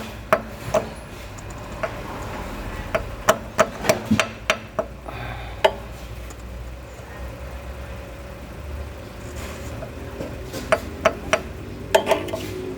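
Light hammer taps from a tape-wrapped hammer driving a new oil pressure relief valve into its bore in a GM engine block. The taps come in irregular clusters, with a pause of a few seconds in the middle.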